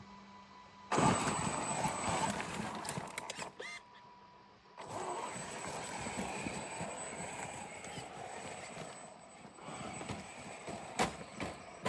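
Traxxas X-Maxx electric RC monster truck driving over rocks and dirt, its tyres and chassis crunching and clattering. This comes in two stretches, about a second in and again from about five seconds in, with a brief lull between, and a sharp click near the end.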